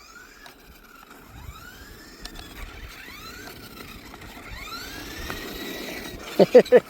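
Toy remote-control car's small electric motor whining, its pitch rising and falling over and over as the car speeds up and slows down. A few short, loud pitched sounds come near the end.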